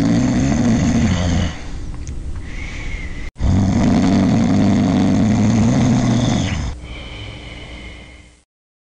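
A person snoring: two long snores with a short break between them, each loud at first and then quieter for a second or two. The sound is the soft palate and uvula vibrating in a partly blocked airway.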